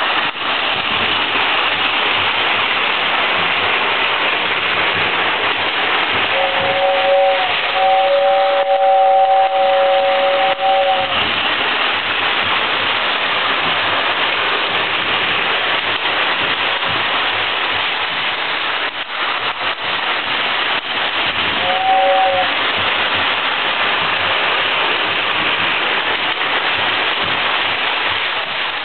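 Lionel toy steam locomotive and cars running on metal track: a steady rushing rattle of wheels and motor. The two-tone toy train whistle sounds a short blast about six seconds in, then a long blast of about three seconds, and another short blast about 22 seconds in.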